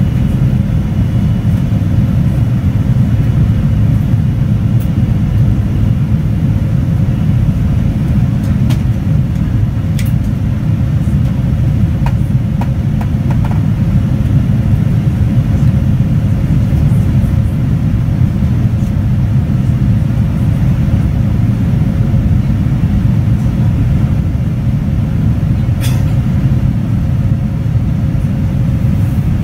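Steady low roar of a Boeing 787-9's engines and airflow heard inside the passenger cabin in flight, with a faint steady hum running through it. A few faint clicks come through, about nine, ten and twenty-six seconds in.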